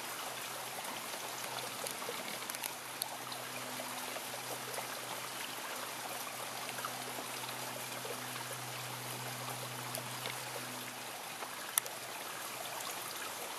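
Heavy summer downpour: a steady, even hiss of rain, with one sharp click about twelve seconds in.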